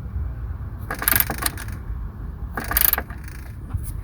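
Milwaukee cordless ratchet running in two short bursts, spinning a battery hold-down fastener down.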